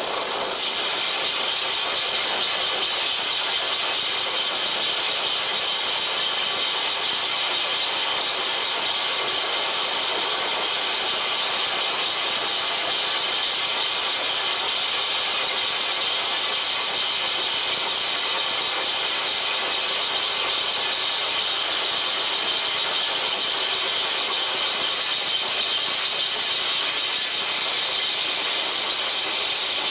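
Harsh noise music played live on electronics: a dense, steady wall of hiss, strongest in the upper middle range with little bass, unbroken and at constant loudness.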